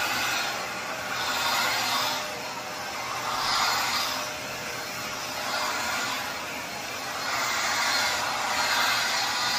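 Vacuum running as it pulls pet hair out of couch upholstery, its sound swelling and easing every two to three seconds as the nozzle is worked over the fabric.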